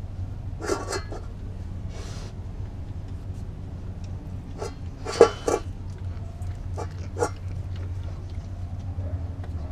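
A Doberman licking and chewing at a nearly empty stainless steel food bowl, making a scatter of short irregular sounds, loudest about five seconds in, over a steady low hum.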